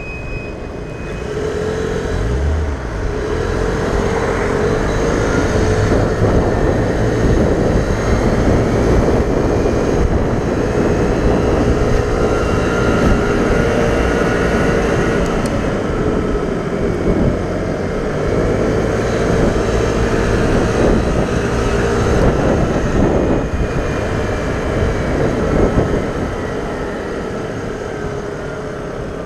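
Vespa scooter engine pulling away from a standstill about two seconds in, then running at road speed, its pitch rising and falling with the throttle. It eases off near the end.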